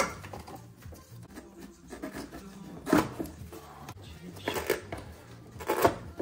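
Valve cover of a BMW N62 V8 being pried and tugged free from the cylinder head, stuck down with old silicone: a few sharp knocks and creaks, the loudest about three seconds in and again near the end, over a low steady background.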